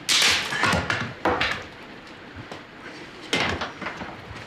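Wooden planks of a driftwood pile knocking and clattering as they are handled. There are three quick knocks in the first second and a half and another about three seconds in.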